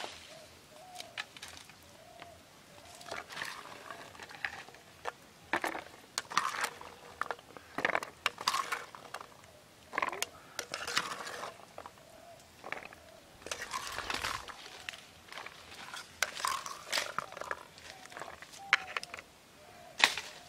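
Seeds being stirred and scooped in a plastic bowl of water with a ladle: irregular splashes, knocks and rattles, over and over.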